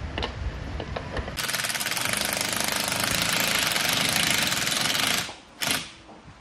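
Cordless impact driver hammering a fastener down into a timber rail capping. It runs hard for about four seconds, then gives one short second burst near the end.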